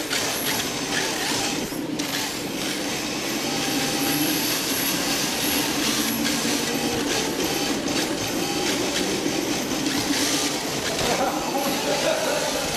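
Onboard sound of a rear-wheel-drive electric RC drift car running flat out: electric motor and gear whine with the pitch wavering as the throttle changes, over the hiss of hard drift tyres sliding on the smooth floor, with scattered small clicks and rattles from the chassis.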